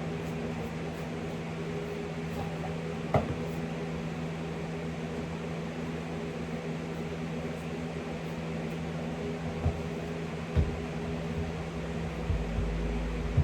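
Electric fan running with a steady hum and whoosh. A few soft thumps are heard about three seconds in and twice near ten to eleven seconds, with a low rumble near the end.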